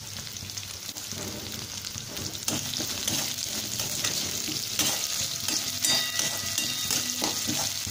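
Chopped green chillies, onion and garlic sizzling in hot oil in a kadai, stirred with a perforated steel spatula that scrapes and taps against the pan now and then.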